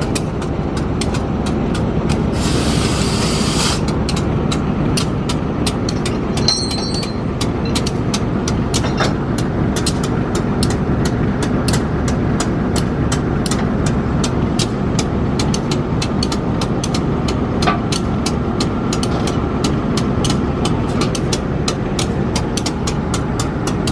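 Diesel shunting locomotive idling with a steady low rumble while it is uncoupled from its carriages. A burst of air hissing about two and a half seconds in lasts about a second, consistent with the air brake line being opened at the coupling.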